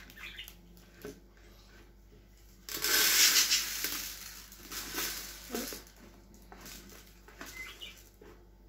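Small plastic packet crinkling as dry Orbeez water-gel beads are tipped out onto a plastic base, loudest for about two and a half seconds near the middle, with lighter rustling around it.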